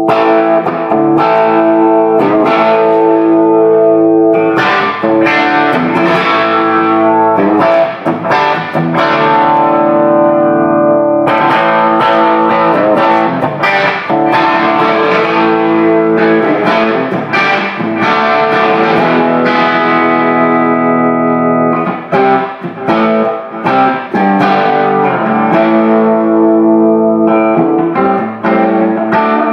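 Electric guitar played through a 36-watt 6V6 tube amp head into a Marshall 4x12 cabinet loaded with Celestion Greenback speakers: chords strummed and left to ring, with a light overdrive as the amp is turned up.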